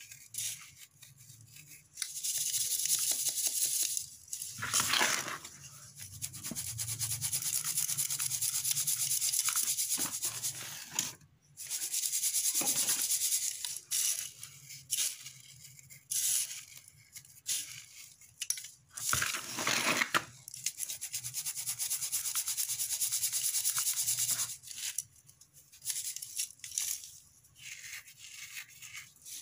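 Crumbled sand-and-cement lumps rubbed by hand against the wire mesh of a round metal sieve, sifting the powder through: a gritty rasping that comes in stretches of a few seconds with short pauses between.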